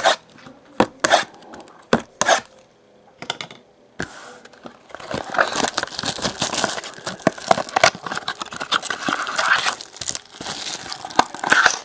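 Trading card pack wrappers being torn open and crumpled. A few sharp clicks at first, then a dense crinkling and tearing from about four seconds in.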